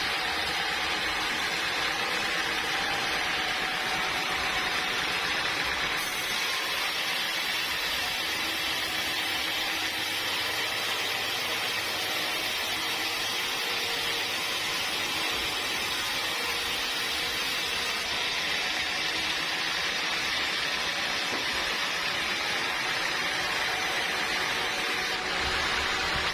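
Sawmill saw running steadily through wood, a constant hissing machine noise that shifts slightly in tone a couple of times.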